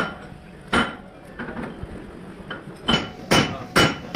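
Hammer blows on metal: two sharp strikes about a second apart, a pause of about two seconds, then three quicker strikes near the end. Each blow has a short metallic ring.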